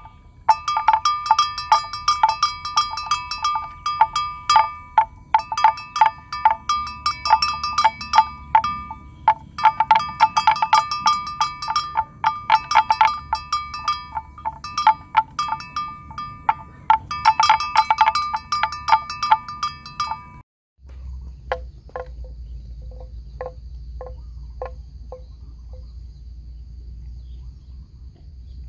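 A bell worn by a grazing water buffalo clanking in rapid, irregular runs of strikes with short pauses between them. About two-thirds of the way through it cuts off; after that there is only a low rumble, a faint steady insect drone and soft, evenly spaced ticks.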